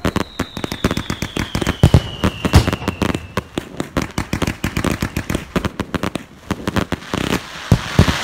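Fireworks going off in rapid succession, a dense run of bangs and crackling pops. A whistle falls slowly in pitch over the first three seconds or so.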